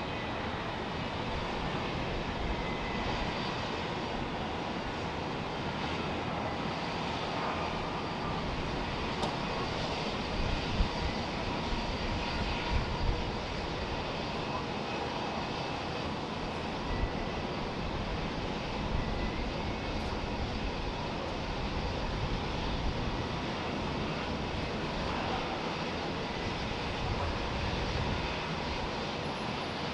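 Boeing 737-800 airliner's CFM56 jet engines running steadily as it rolls out and slows after landing: an even rushing noise with a faint whine. A few brief knocks come about eleven to thirteen seconds in.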